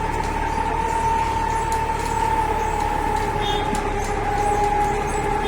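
Rail vehicle running along the track, with a steady whine that slowly falls in pitch over a continuous rumble.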